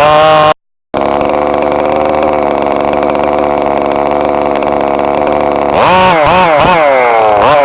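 Small radio-controlled car engine running at a steady high pitch, then from about six seconds in revving up and down in several quick blips. The sound cuts out completely for a moment just after the start.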